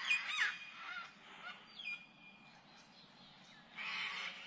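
Birds calling: a few quick gliding calls at the start and one longer held call about two seconds in, fairly faint. A brief rush of noise follows near the end.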